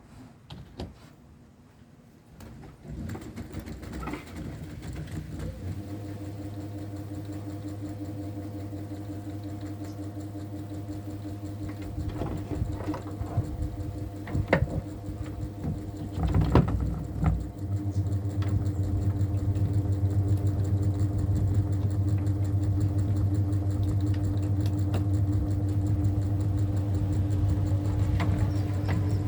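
Electric ceiling fan motor humming steadily as it runs. The hum starts a few seconds in and gets louder in steps, about six seconds in and again a little past the middle. A few short clicks or knocks come just before the middle.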